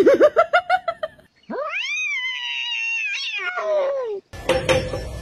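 A cat giving a quick run of short rising chirp-like meows, then one long drawn-out yowl that rises, holds and falls away. Near the end a rapid, even tapping starts.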